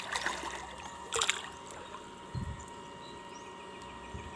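Water splashing and trickling in short bursts near the start and a little over a second in, with a low thump about two and a half seconds in.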